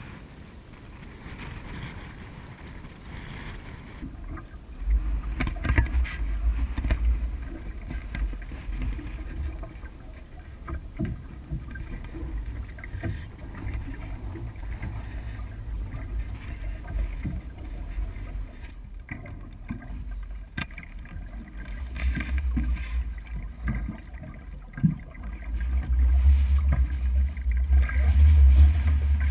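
Wooden canoe being paddled across choppy water: paddle strokes splash and water sloshes against the hull. Wind buffets the microphone as a low rumble that comes in about five seconds in and grows loudest near the end.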